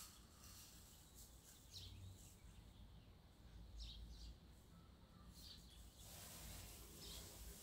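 Granulated sugar poured quietly from a jar into a measuring cup and then tipped into a pot, with a soft hiss in the last second or so. A few short, faint high chirps are scattered through it.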